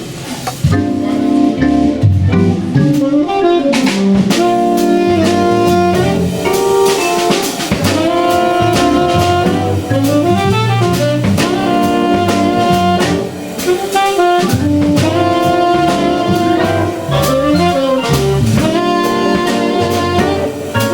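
Small jazz band playing an up-tempo tune: tenor saxophone taking the lead line over organ and a drum kit.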